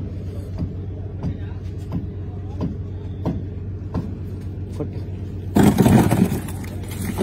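A fishing boat's engine running steadily, with a regular knock about every two-thirds of a second. A little after five seconds in, a loud, brief clatter as a handful of fresh prawns is dropped into a plastic crate.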